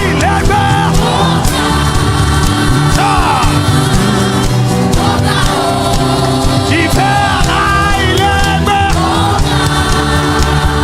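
Gospel worship music: a choir and voices singing over sustained backing instruments.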